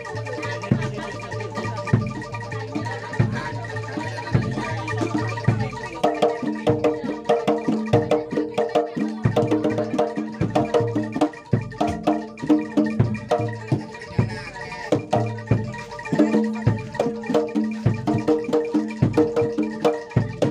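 Javanese gamelan-style music for kuda lumping: a repeating melody of struck, pitched metal or mallet percussion over drumming. About six seconds in, the low notes drop away and a busier pattern of mid-range struck notes begins.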